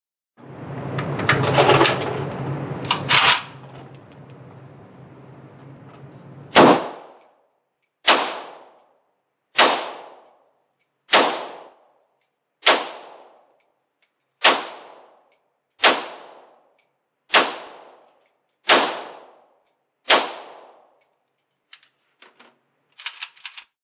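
Arsenal SLR-107FR AK rifle in 7.62x39 fired semi-automatically, ten shots in a steady string about one and a half seconds apart, each with a ringing echo. It is preceded by a few seconds of handling noise with two sharp clacks, and a few light clicks follow near the end.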